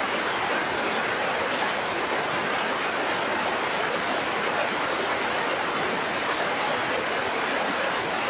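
Willow River waterfall roaring, swollen with spring snowmelt: a steady, even rush of water.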